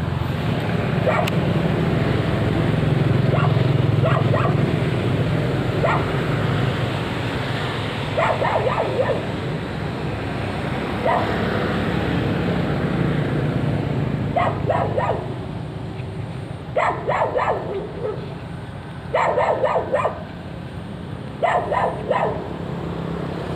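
A dog barking in short runs of quick barks, several times over, above a steady low background noise.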